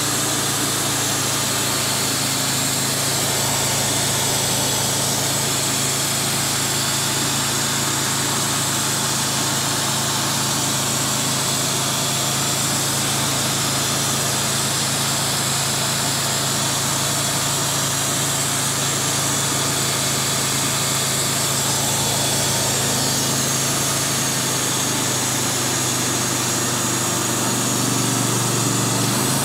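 Wood-Mizer portable band sawmill running steadily, its engine holding a constant hum under the hiss of the band blade working through a walnut log.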